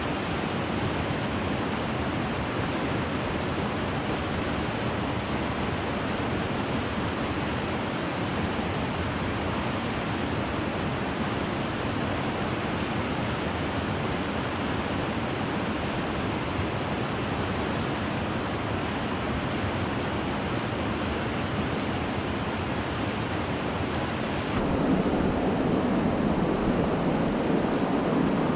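Steady rushing water of a stream, an even hiss with no distinct events. About 25 s in it turns louder and deeper, with the top end dulled.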